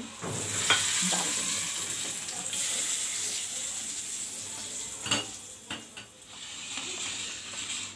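Hot oil tempering (tadka) of curry leaves, green chillies and cumin sizzling loudly in a small saucepan, rising sharply just after the start and slowly dying down, with a few knocks of the pan.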